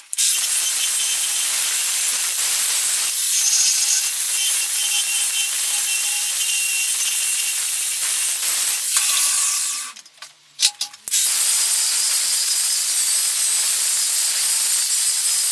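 Angle grinder with an abrasive disc grinding into the edge of an old hardened steel file: a loud, steady, high-pitched grinding hiss. It stops briefly about ten seconds in, then starts again.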